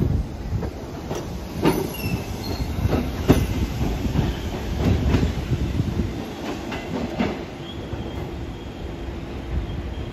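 A New York City subway train of R68-series cars pulling out and running away along the track. It rumbles, with irregular clacks as its wheels cross rail joints and a faint squeal of wheels on rail.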